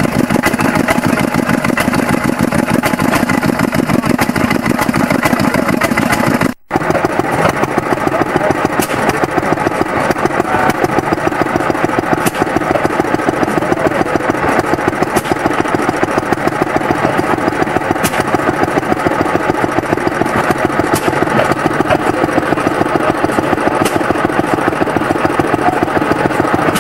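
Vintage stationary engines running steadily with a regular firing beat. The sound briefly drops out about six and a half seconds in.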